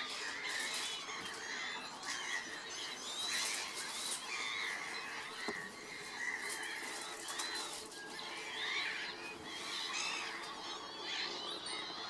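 A flock of northern lapwings calling: many overlapping calls that rise and fall in pitch, one after another without a break.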